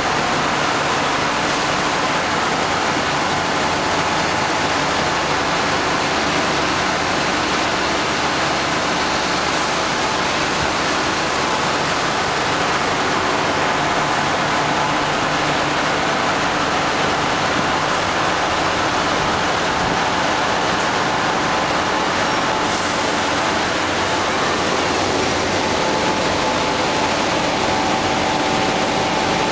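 Ice-making plant running: a steady, loud rushing noise of plate ice machines and their refrigeration equipment at work, with faint steady humming tones under it.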